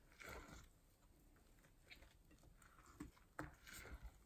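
Faint, sporadic squishing of foamy slime being stirred and kneaded by hand in a glass bowl, with a few soft clicks between the squishes.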